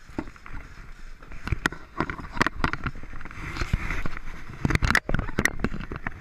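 Irregular clicks, knocks and rustling of six-point racing harness straps and buckles being pulled and adjusted in a Formula One car's cockpit, handled close to the microphone.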